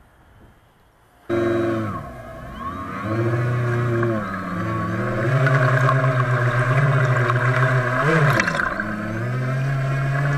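Turnigy 2822 1400kV brushless outrunner motors of an RC boat running, picked up by a camera mounted on the boat: a pitched hum with many overtones and a higher whine above it, starting suddenly about a second in. Its pitch rises and falls several times as the throttles change, with a quick rise and drop near the end.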